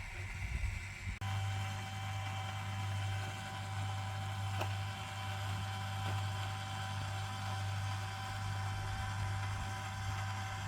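Steady motor hum of the truck camper's side awning extending, stopping abruptly near the end.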